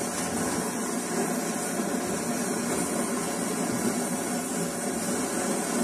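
Pressurized diesel stove burner running with a steady, even rushing noise as its flame turns blue.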